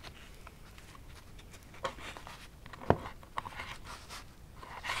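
Knife cutting squirrel meat on a wooden board: a few short, soft clicks and knocks of the blade and handling, the sharpest about three seconds in.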